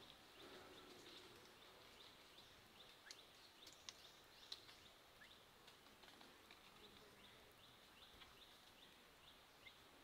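Near silence: faint forest ambience with many soft, short high chirps repeating throughout and a few faint ticks.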